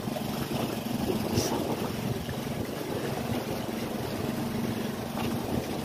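A small boat engine idling steadily, a low hum, with water and wind noise around it and a short hiss about a second and a half in.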